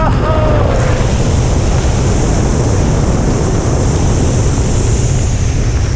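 Loud, steady wind rushing over the microphone during a skydive, with a heavy low buffeting and a hiss that rises up about a second in and eases near the end.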